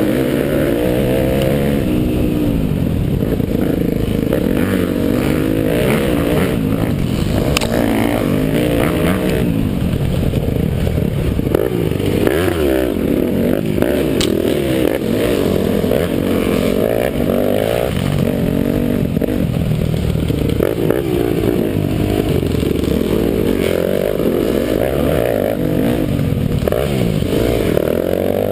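Dirt bike engine revving up and down continuously under hard riding on a trail, heard from on board and muffled. Two sharp knocks cut through, about a third and halfway in.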